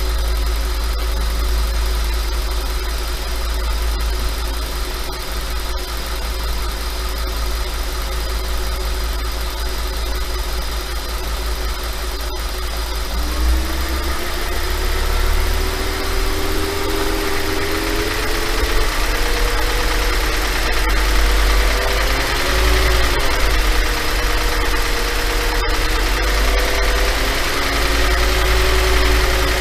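5.2 FSI V10 engine idling; about 13 seconds in the revs rise slightly, waver, then hold a little above idle. At this raised idle it rattles, which the owner asks may be piston slap.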